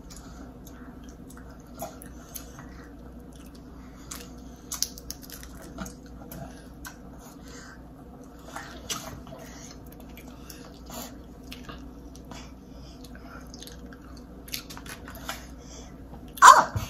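Close-up wet eating sounds: lips smacking, sucking and chewing on seafood coated in garlic butter sauce, with scattered small clicks and ticks. About sixteen seconds in there is one short loud sound.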